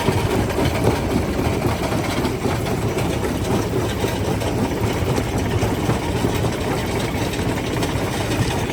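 Primary jaw crusher running: a steady heavy rumble with scattered faint knocks.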